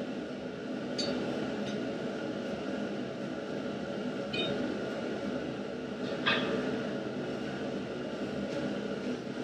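Steady rushing hum of a running gas forge, with a few light metallic clinks over it.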